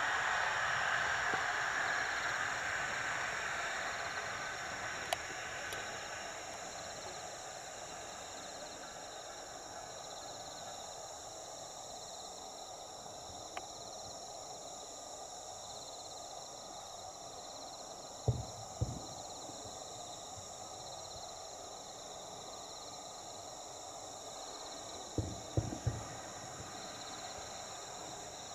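Distant aerial firework shells bursting, heard as dull booms that reach the microphone seconds after the flashes: two booms about 18 seconds in and a quick cluster of three about 25 seconds in. A steady high-pitched hum runs underneath, and a faint hiss fades out over the first few seconds.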